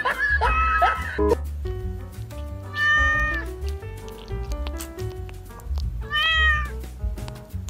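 Cat meowing: a few short mews in the first second, then two longer meows about three seconds apart, over background music.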